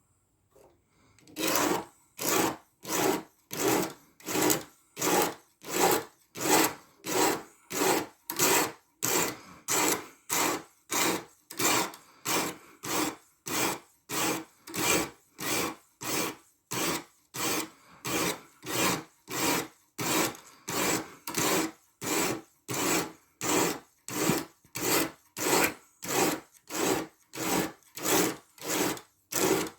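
A coarse 120-grit diamond stone on a guided knife sharpener rasping across the edge of a 14C28N steel blade. It goes in steady, even push strokes, about one and a half a second, beginning about a second in.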